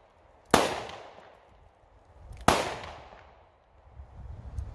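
Shots from Standard Manufacturing Thunderstruck S333 .22 WMR revolvers: two sharp reports about two seconds apart, each echoing away over about a second, with a third at the very end.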